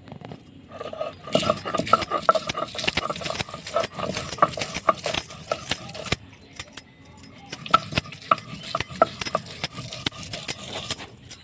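Stone roller (batta) rubbed back and forth on a stone grinding slab (sil), grating and knocking as it crushes roasted pumpkin leaves, garlic and ginger into a chutney paste. The grinder's bangles jingle with each stroke, and there is a short pause about six seconds in.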